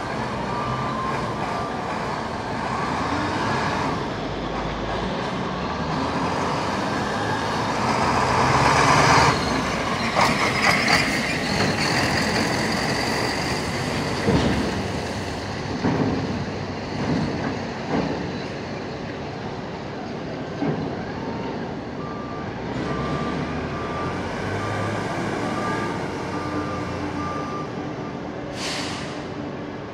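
Heavy diesel engines of top-lift container forklifts running under work, with several loud knocks and clanks in the middle. A reversing beeper sounds a steady row of beeps in the second half, and a short hiss comes near the end.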